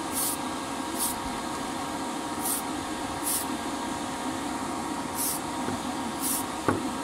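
Tamiya surface primer aerosol can spraying in six short hissing bursts onto small die-cast model car parts, over the steady hum of a fan, with a light knock near the end.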